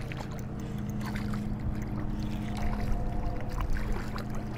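Hooked smallmouth bass splashing at the surface beside the boat as it is reeled in, a series of short, uneven splashes. A steady low hum runs underneath.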